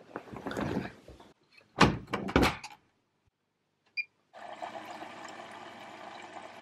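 Front-loading washing machine being loaded: laundry pushed into the drum, then the door shut with two loud thunks, followed by a single short beep as the Start button is pressed. About a second later a steady, even sound starts up and runs on.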